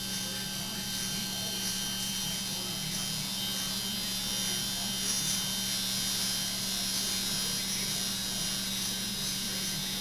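Steady electric buzzing hum from a failing refrigerator: the strange noise that is the sign it is dying.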